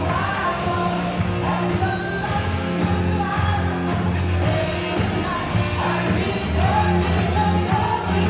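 Live music over a PA: a man singing into a handheld microphone over a keyboard accompaniment with a steady, repeating bass line.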